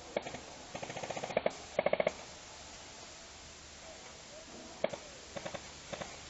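Airsoft rifles firing: a couple of single shots, then two rapid bursts of full-auto fire about one and two seconds in, then a few scattered shots near the end.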